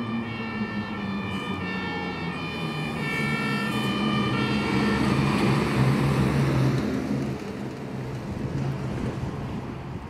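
German two-tone fire engine siren (Martinshorn) switching back and forth between two pitches, stopping about halfway through. Meanwhile an Iveco Magirus fire engine's diesel engine grows loud as the truck drives past close by, then eases off.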